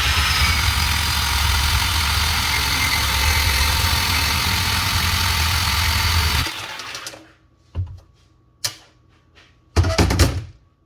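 DeWalt DCS370 18V cordless portable bandsaw cutting through schedule 40 pipe for about six and a half seconds, then winding down when the cut is finished. A few knocks and clattering thumps follow near the end.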